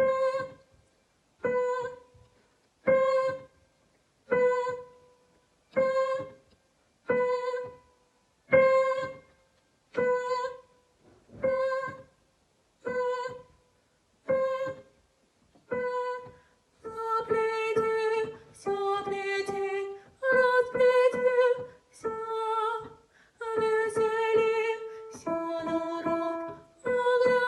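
Music: one note repeated slowly and evenly, about once every second and a half, each fading away. About two-thirds of the way through it gives way to a slow tune of longer held notes that move up and down in pitch.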